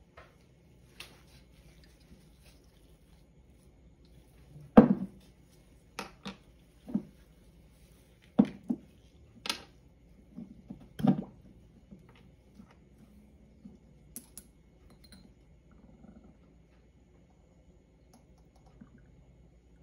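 Small glass dropper bottles being handled and set down on a wooden tabletop: a run of about ten sharp clinks and knocks between about five and twelve seconds in, the first the loudest, then only faint handling noise.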